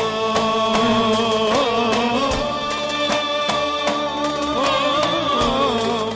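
Live band music in a Turkish folk style: a clarinet plays the lead melody with wavering, sliding ornamented notes over a held accompaniment and a steady beat.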